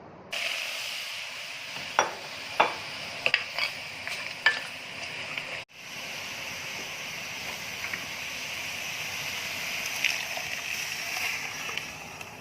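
Food sizzling in hot oil in a pan, a steady hiss with a few sharp taps of a utensil against the pan in the first few seconds. The sizzle cuts out for an instant about halfway, then carries on.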